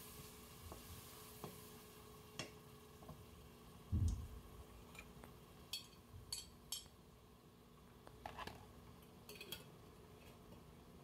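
Quiet kitchen handling sounds: light taps of a wooden spoon against a cooking pot, a dull thump about four seconds in, then a few sharp glass clinks as a jar of crushed tomatoes is tipped over the pot.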